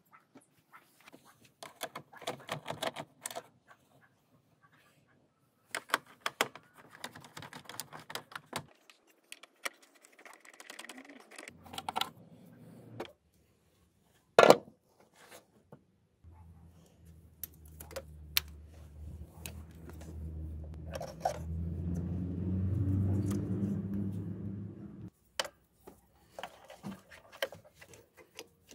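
Hands working on a van's engine-bay wiring and fan assembly: scattered clicks, rattles and clatter of parts and plastic connectors, with one sharp loud click midway. In the second half a steady low hum swells up and then cuts off abruptly.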